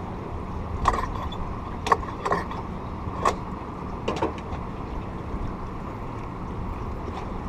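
Steady low rumble of a boat's running motor and moving water, with about six sharp clicks and knocks in the first half.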